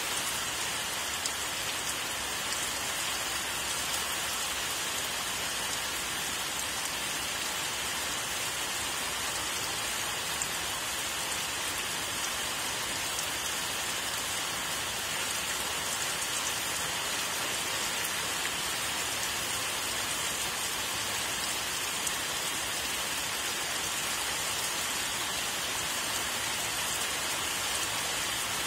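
Steady rain falling: an even hiss with faint scattered drop ticks, holding at one level throughout.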